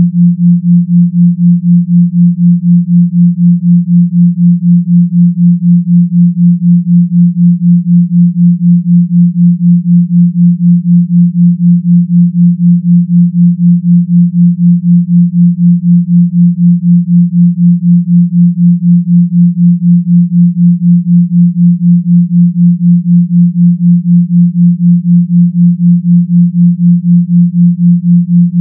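Binaural-beat tone: pure sine tones at 172 Hz and 176 Hz, a 174 Hz solfeggio frequency with a 4 Hz theta beat. Heard together, they make one steady low hum that swells and fades evenly about four times a second.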